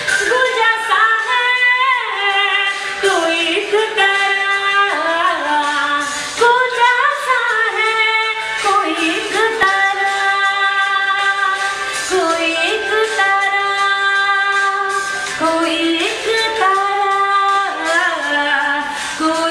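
A woman singing a Hindi song solo, holding long drawn-out notes that slide and waver between pitches.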